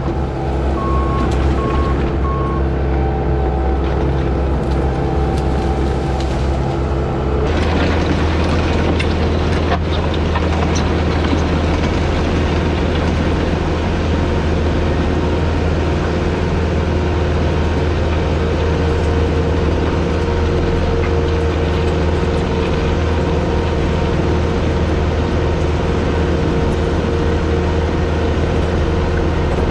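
Bobcat T770 compact track loader's diesel engine running steadily. About seven seconds in it steps up to a louder, fuller sound as it is throttled up under work. A few short beeps sound in the first couple of seconds.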